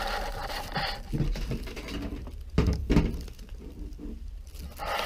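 Handling noise: scattered light knocks and rustles, with a couple of louder thumps about two and a half to three seconds in.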